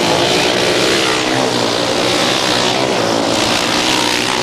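Racing motorcycles' engines running hard as the field passes, several engines sounding at once at a steady loudness.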